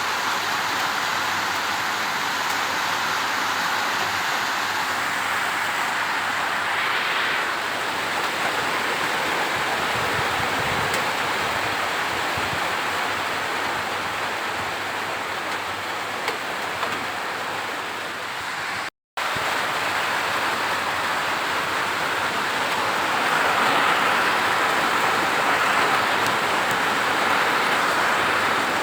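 Steady rain, an even hiss, which cuts out completely for a split second about two-thirds of the way through.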